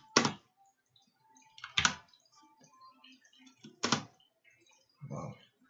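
Computer keyboard keystrokes: three sharp, separate key strikes about two seconds apart, with fainter clicks between them.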